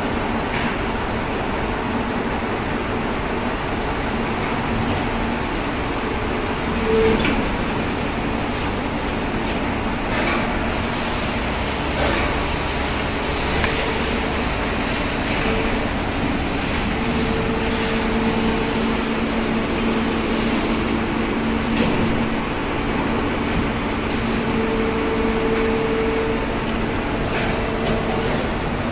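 Plastic injection moulding machine running through its moulding cycle: a steady mechanical drone with a hum that rises in and drops out at times, and a few sharp clunks and hisses.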